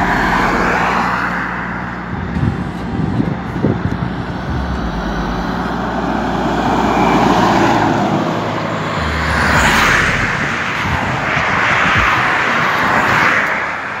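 Highway traffic passing close by. An International 9200 Eagle tanker truck's diesel engine approaches and goes past about two-thirds of the way in. Cars and vans follow, their tyre and engine noise rising and falling in several swells.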